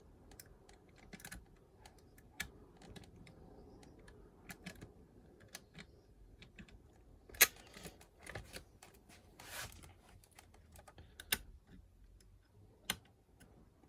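Small metallic clicks and taps of a lever-lock pick working the levers of a 5-lever mortice lock, irregular and mostly faint, with a few sharper clicks in the second half.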